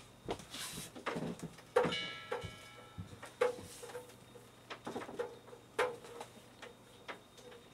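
Clicks and knocks of metal keg fittings being handled as the gas-in and liquid-out connections are made to a Cornelius keg, about a dozen at uneven spacing; one knock about two seconds in leaves a brief metallic ring.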